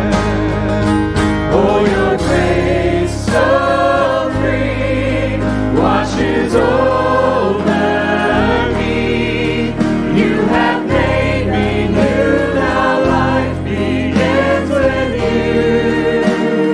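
A church praise team of several singers sings a contemporary worship song together, backed by acoustic guitar and bass guitar, with the bass changing note every couple of seconds.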